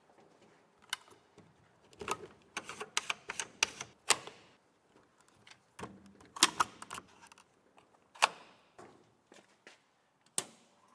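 An irregular series of sharp clicks and knocks, some in quick clusters, the loudest about four, six and a half and eight seconds in.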